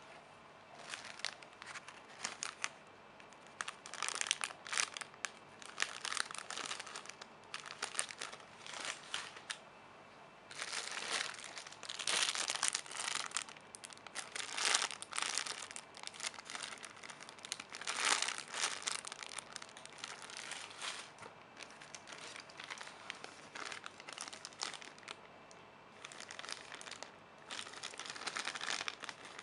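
Plastic packaging crinkling as it is handled, in irregular bursts, loudest around the middle.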